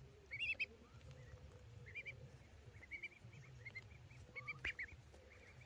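Mallard ducklings peeping: clusters of short, high chirps, loudest about half a second in and again near the end.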